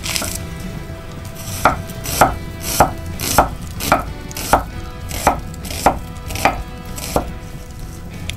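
Chef's knife slicing a red onion on a wooden cutting board: about ten even cuts, one roughly every 0.6 seconds, each ending in a knock of the blade on the board, starting about a second and a half in.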